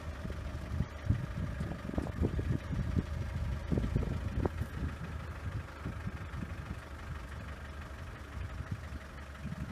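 A vehicle engine running slowly with a steady hum, with irregular low knocks and bumps, loudest in the first half.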